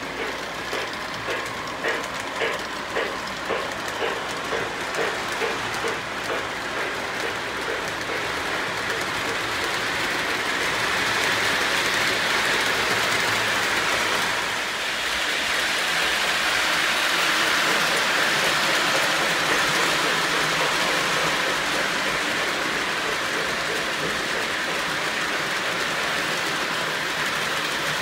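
Lionel O-gauge model train, a Reading T-1 steam locomotive pulling a freight train, running around the track. At first it keeps a regular beat about twice a second, then it becomes a steady hiss that grows louder about ten seconds in.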